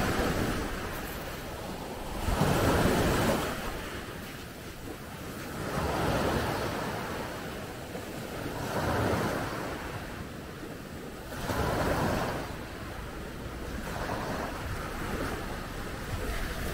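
Small sea waves breaking and washing up a sandy beach, the surf swelling and easing about every three seconds.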